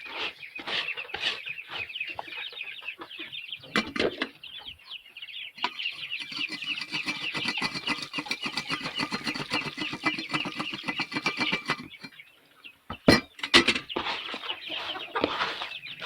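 Chickens clucking and calling, a dense chatter of many short repeated calls, with a couple of loud sharp knocks about thirteen seconds in.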